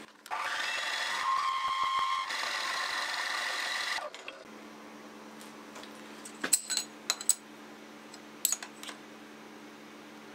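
Bench milling machine's end mill cutting aluminium to square up the end of the part: a steady, pitched machining whine for about four seconds that stops abruptly. Then a low steady hum, with a few light metallic clicks and taps as metal pieces are handled on the vise.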